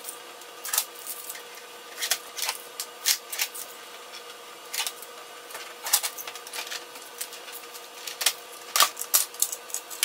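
Strips of clear packing tape being peeled off a laser printer's plastic casing: irregular sharp crackling and ripping in short spurts, over a faint steady hum.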